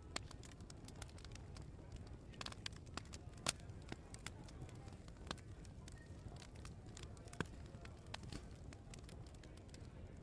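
Open wood fire crackling: irregular sharp pops and ticks over a low steady rumble, the loudest pops about three and a half seconds in and again near seven and a half seconds.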